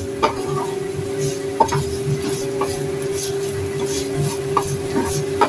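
Metal spatula scraping and knocking against a wok, several separate clacks, as a chili-garlic spice paste is stir-fried in oil, with a faint sizzle. A steady low hum runs underneath.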